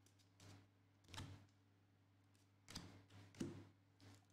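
Faint, brief flicks and taps of cardboard trading cards being thumbed through one by one in the hands, a handful of separate ones spread through a near-quiet stretch.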